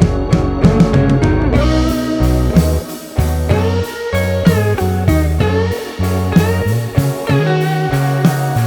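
Background music led by a guitar with bending, sliding notes over a steady bass line.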